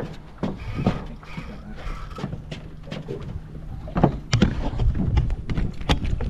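Irregular knocks and bumps as the camera and its mount are handled in a boat, over a low steady hum.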